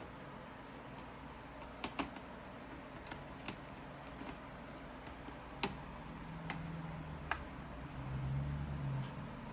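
A few scattered sharp clicks and taps, and a low hum that sets in about six seconds in, grows louder near the end, then stops.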